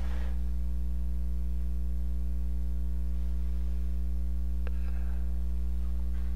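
Steady electrical mains hum with a ladder of overtones, and a single faint click about two-thirds of the way through.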